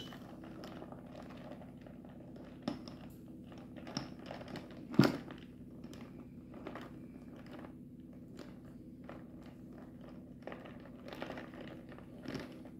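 A long bar spoon stirring an iced beer cocktail in a tall glass, ice clinking against the glass now and then, the loudest clink about five seconds in, over a low steady hum.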